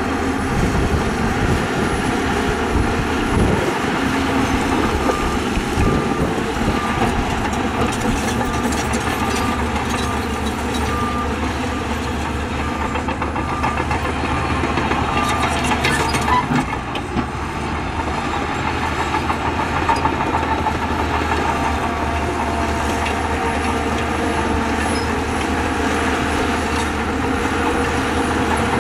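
Heavy earthmoving machinery, bulldozer and dump-truck diesel engines, running steadily, with scattered metallic clanks. A reversing alarm beeps at an even pace from about five seconds in for roughly ten seconds.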